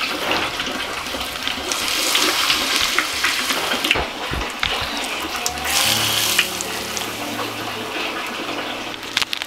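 Hot frying oil poured from a wooden ladle over raw sambal dabu-dabu (chopped chillies, tomatoes and shallots), sizzling and hissing. The sizzle swells louder twice, about two seconds in and again about six seconds in.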